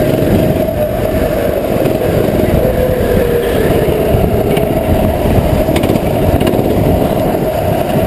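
Small go-kart engine running close under the onboard microphone, a steady dense rumble with its pitch easing down a little around the middle as the kart slows into the pit lane.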